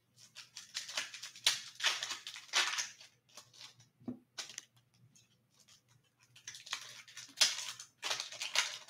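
Trading cards and clear plastic card holders being handled: papery rustling and sliding scrapes in bursts, one cluster over the first few seconds and another near the end.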